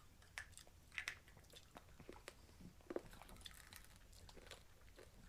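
Faint chewing of hard sour candy balls: scattered crunches and clicks as the candy is bitten, the sharpest about a second in and again near three seconds.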